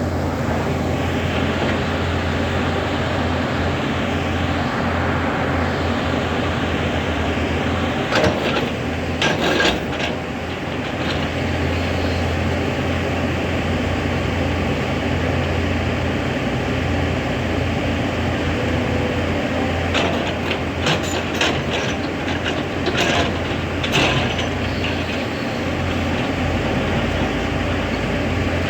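Excavator's diesel engine running steadily under load, with a deep hum. Metallic clanks and knocks come from the working machine about a third of the way in and again in the second half.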